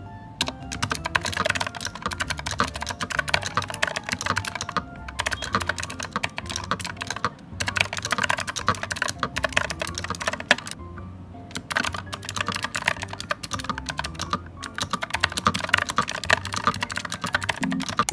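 Typing on a pink iPad keyboard case: quick runs of key clicks broken by a few short pauses, over background music.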